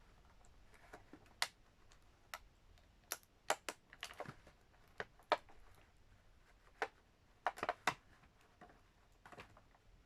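Irregular sharp clicks and taps of plastic toy packaging being handled and pulled at, about fifteen in all, some coming in quick pairs.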